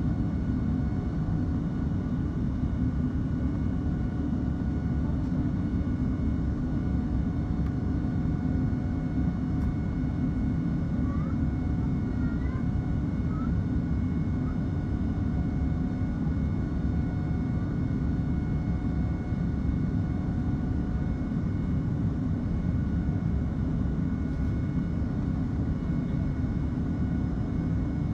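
Airliner cabin noise during climb-out: the wing-mounted turbofan engines running steadily at climb power, a deep, even rumble with a few faint, steady whining tones above it.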